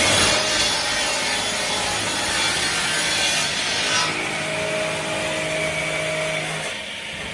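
Circular rip saw of a Maba 4000 board edger cutting lengthwise through a board, loud for about four seconds. The cutting noise then stops and the saw runs on with a steady tone, which quietens near the end.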